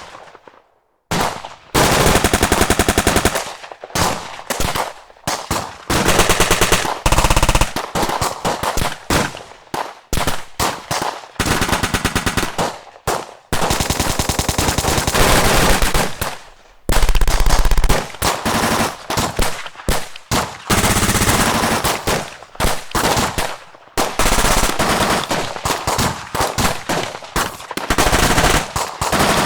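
Battle gunfire sound effect: bursts of rapid automatic fire, one to a few seconds each, broken by short pauses.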